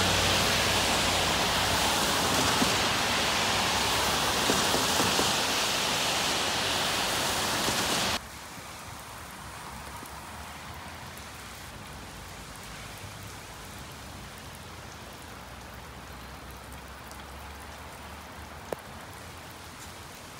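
Steady rain falling. For the first eight seconds it is loud and close, then it cuts suddenly to softer, more distant rain.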